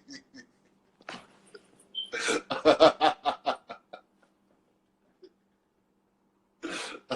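A man laughing in a quick run of short repeated bursts, starting about a second in and lasting about three seconds.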